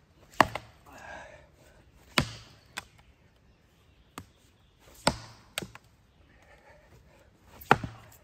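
Heavy blows of a Fiskars splitting axe-head driven into a large ash round: four hard chops about two and a half seconds apart, with lighter knocks between them. The round has not yet split.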